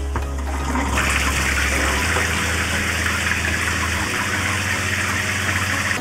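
Water rushing out of a shower head as the mixer valve is opened, the spray starting about a second in and running steadily.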